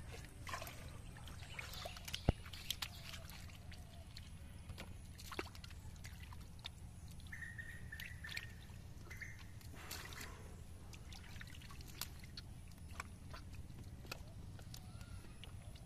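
Small splashes and sloshing of shallow muddy water as hands grab at eels in a pit.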